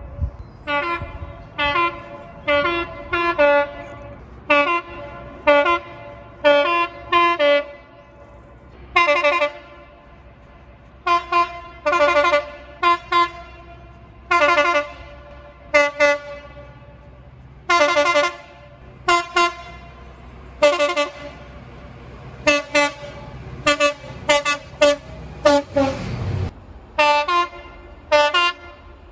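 A multi-tone air horn, of the train-horn kind, sounding a long run of short blasts in quick rhythmic groups, with a few longer blasts in between. A loud rushing burst of noise comes near the end.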